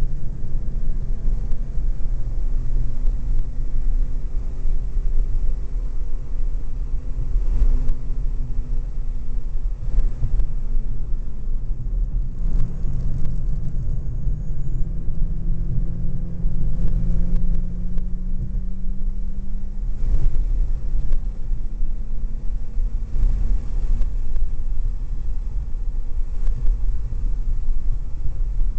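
Supercharged BMW E46 M3's straight-six engine running on track, its pitch rising and falling gently with throttle, over a heavy low rumble.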